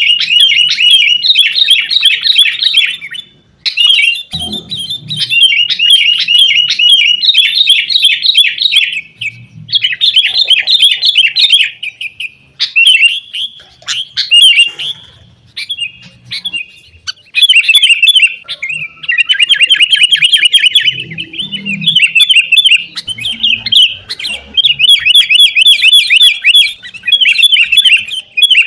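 Sooty-headed bulbuls (kutilang) giving rapid, noisy chattering calls in long runs of quick chirping notes, broken by short pauses every few seconds.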